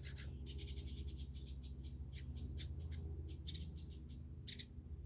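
Nestling birds in a nest chirping, a quick series of short raspy high calls that goes on throughout, over a steady low hum.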